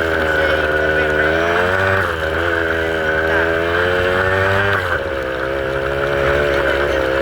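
A vehicle engine running under steady load with a whining note, its pitch shifting with the revs; about five seconds in the note drops sharply, as at a gear change or easing off.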